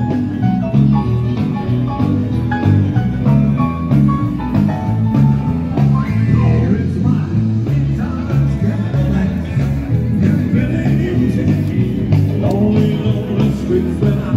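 Music with a steady beat and a repeating bass line.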